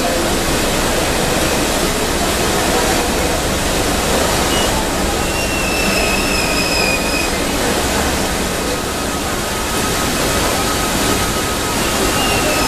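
Crush-tear-curl (CTC) tea-processing machines running: electric motors, rollers and conveyor belts making a steady loud mechanical din. A thin high squeal rises out of it about five seconds in and again near the end.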